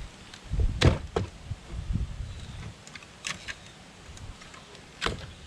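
Plastic clicks and handling noise as the wiring connectors are unclipped from a truck door's power window switch panel, with a few sharp clicks about a second in, around three seconds in and near the end.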